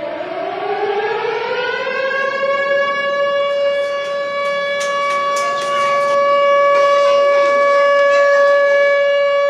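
Civil-defence air-raid siren sounding an air-raid alert. Its wail climbs in pitch over about two seconds and then holds one steady tone. Short knocks and rustles come through in the middle.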